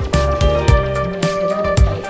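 Background music with a steady beat: held melodic notes over a regular drum pattern.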